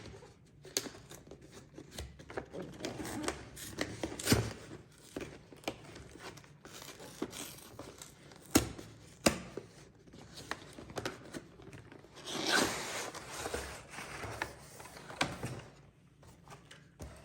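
A cardboard and plastic card-set box being opened by hand: scattered clicks and taps as it is handled, with a longer stretch of tearing, crinkling packaging about twelve seconds in.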